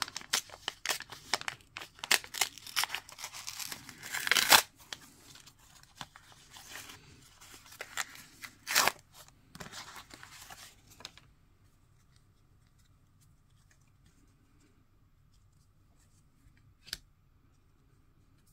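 An AFL Team Coach 2024 trading-card pack wrapper being torn open and crinkled, with sharp rips, the loudest about four and a half seconds in and again near nine seconds. After about eleven seconds the rustling stops, leaving a faint hum and a couple of single clicks.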